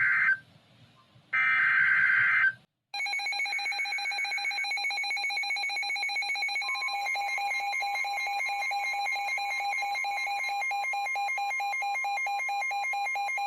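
Two short buzzy bursts of NOAA Weather Radio SAME digital alert data, then a weather radio receiver sounding a steady, rapidly pulsing electronic alert alarm. About halfway through, the broadcast's steady single-pitch warning alarm tone joins it. Together these signal that a new warning is being issued.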